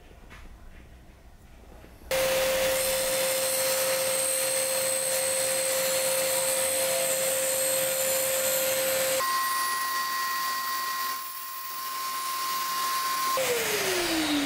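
A mini benchtop table saw's motor running with a steady whine, under the hiss of a vacuum dust extractor, as strips of wood are cut. About nine seconds in the whine changes abruptly to a higher pitch. Near the end the saw is switched off and its motor winds down with a falling whine.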